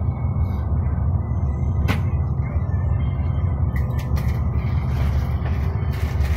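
Three-axle Mercedes-Benz Travego coach cruising on the highway, heard from inside the cabin: a steady low rumble of engine and road noise, with a single click about two seconds in.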